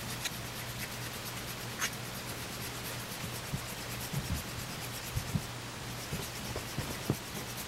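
A straight razor being honed by hand on a wet Shapton 8,000-grit stone: the steel blade rubs and scrapes over the stone in repeated strokes, refining the bevel.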